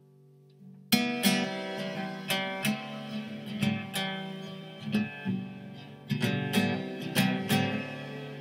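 Background music: guitar strumming chords, coming in about a second in after a faint held note.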